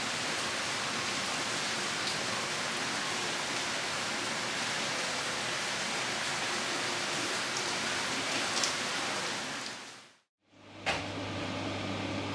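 Heavy rain falling steadily, an even hiss. About ten seconds in it fades out, and a steady low hum of laundromat washers and dryers with a few light clicks takes over.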